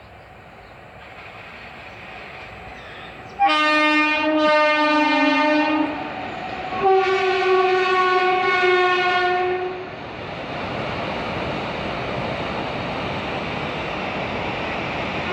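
Indian Railways WAG7 electric locomotive's air horn sounding two long blasts, the second higher in pitch, as the freight train approaches. The horn is followed by the steady rumble and wheel clatter of the passing freight wagons.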